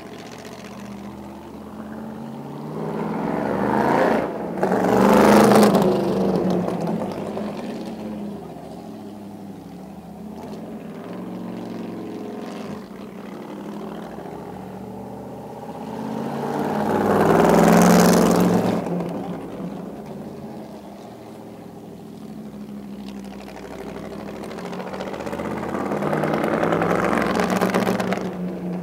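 The 1952 Cunningham C-4R's Chrysler Hemi V8 running as the open racing roadster drives laps. Its engine note swells and fades as it passes close three times: about five seconds in, again around eighteen seconds in, and once more near the end.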